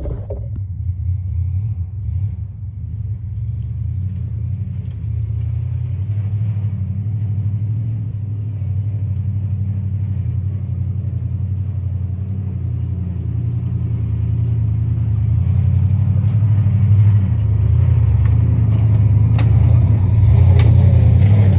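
Jeep engine running with a low, steady sound that comes in suddenly at the start and grows louder over the last several seconds.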